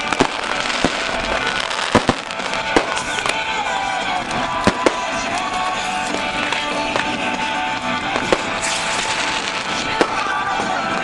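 Fireworks going off: about six sharp bangs, a second or several apart, over a steady hiss of rocket trails and crackling sparks, with music playing underneath.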